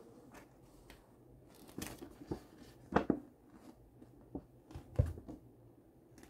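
A paper leaflet being handled and unfolded: a run of short rustles and crinkles, the loudest about three and five seconds in.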